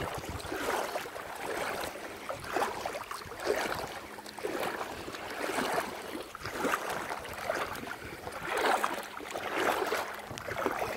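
Bare feet wading through shallow water, a splash and slosh with each step about once a second.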